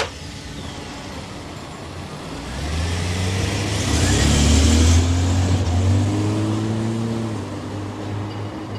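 A car driving past: its engine and tyre noise grow louder, peak about halfway through, then fade away.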